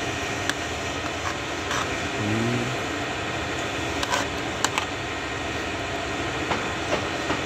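Steady background hum, with a few sharp light clicks scattered through it, typical of a spoon or fingers on a plate while eating.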